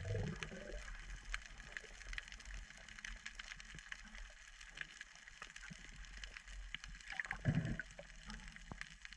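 Underwater reef sound: many faint, scattered clicks and crackles over a low rumble, with a brief louder gurgle of water about seven and a half seconds in.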